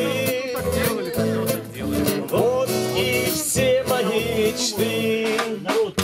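Live band playing an instrumental break between verses: strummed acoustic guitar, electric guitars and bass guitar under a wavering lead melody with pitch bends.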